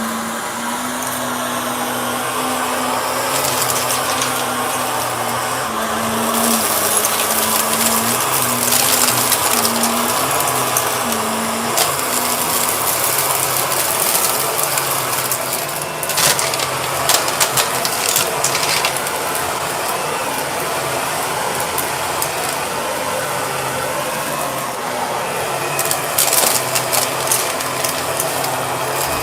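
Purple Shark vacuum cleaner running continuously, its motor hum wavering in pitch at first. Sharp clicks and rattles come about halfway through and again near the end.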